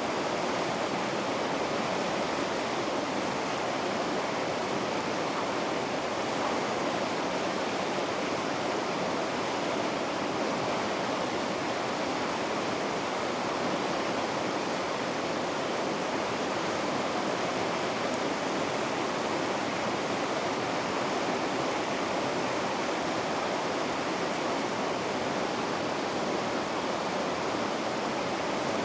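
River rapids rushing: an even, unbroken roar of fast water with no changes.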